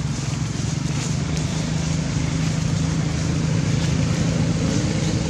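Steady low hum of an engine running, with a grainy rustle over it.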